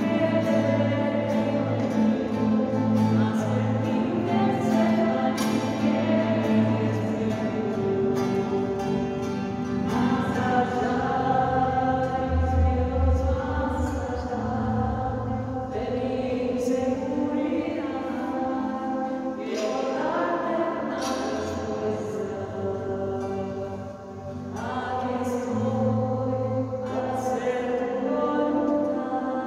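A choir singing a slow hymn, with long-held notes that move from one chord to the next.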